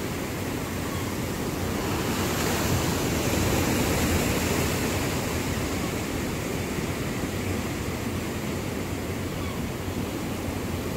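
Ocean surf washing and surging against a pier wall: a steady rush of moving water that swells a little louder about two to five seconds in.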